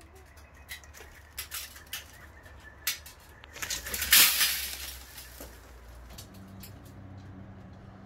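Sulphur-crested cockatoo at a hanging seed feeder: a run of sharp clicks and clinks from its beak and the feeder, then a brief loud whoosh of wingbeats as it takes off about four seconds in.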